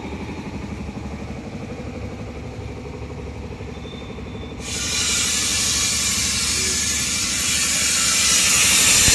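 A steady, fast-pulsing mechanical hum, then about halfway through a sudden loud hiss of compressed air starts and keeps on as the valve of an air-over-hydraulic car lift is opened to let the raised vehicle down.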